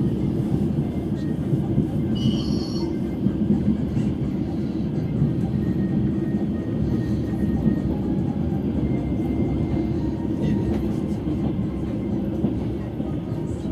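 Passenger train running along the track, heard from inside the carriage: a steady low rumble of the wheels on the rails.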